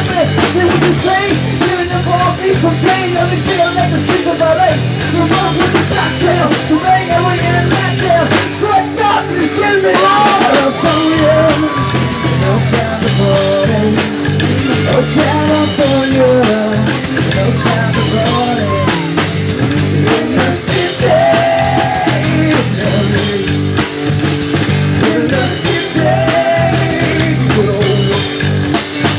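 Live band playing loudly on drum kit, electric bass and guitars.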